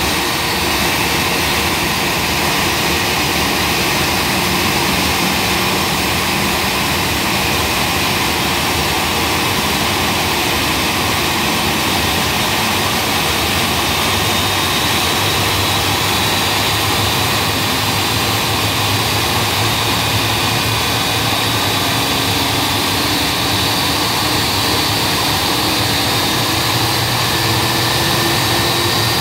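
IAE V2500 turbofan on an Airbus A320 running during its engine start: a steady rush of fan and core noise with whining tones that slowly rise in pitch through the second half as the engine accelerates.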